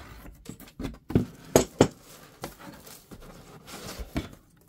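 Cardboard packaging being handled: a boxed accessory is pulled out of a foam insert inside a shipping carton, with a run of knocks and bumps and some rustling, the loudest knocks a little over a second in.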